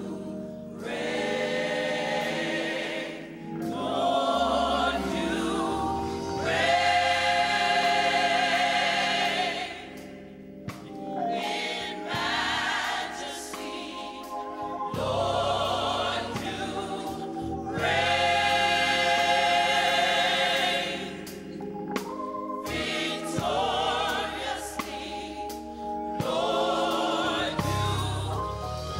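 Gospel choir singing in full harmony over organ accompaniment, in long phrases that swell loud and then ease back.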